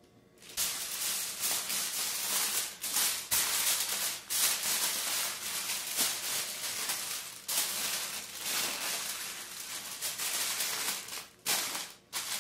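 Aluminium foil crinkling and rustling as it is folded and pressed around a piece of cake by hand, with a few short pauses.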